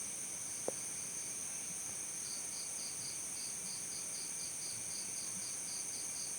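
Crickets chirping: a steady high-pitched trill runs throughout, and from about two seconds in another cricket joins with evenly spaced chirps, about four a second. A single short click sounds under a second in.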